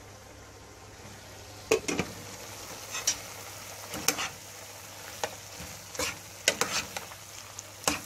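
A spoon stirring steamed cabbage and vegetables in a frying pan, scraping and clinking against the pan at irregular moments about once a second, over a low steady sizzle. The clinks start nearly two seconds in.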